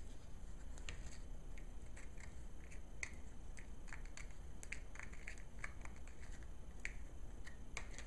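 Scattered light clicks and taps, one to three a second, from hands working on a laptop's screen bezel while fitting its screw covers back on.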